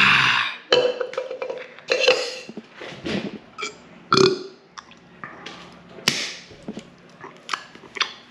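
A man's loud open-mouthed shout right after chugging a cup of water, followed by a run of irregular gasps and burps, about one a second.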